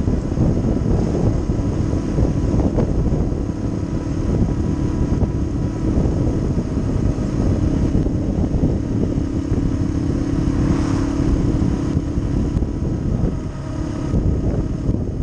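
Motorcycle cruising at road speed, its steady engine hum under heavy wind buffeting on the microphone. The engine note drops briefly toward the end.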